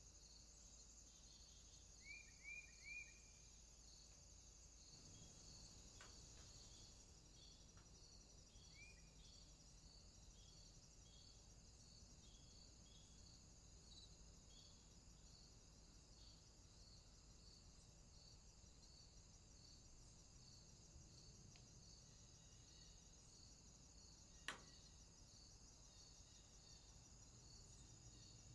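Faint insect chorus: a steady high chirring with a regular pulsing chirp repeating throughout. A few quick bird chirps come about two seconds in and once more a few seconds later, and a single sharp click comes near the end.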